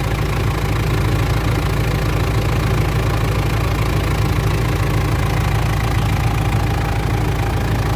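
Mitsubishi L200 Triton's 3.2-litre four-cylinder turbodiesel idling steadily from a cold start. With its timing chain newly replaced, the engine runs smoothly and the chain noise is gone.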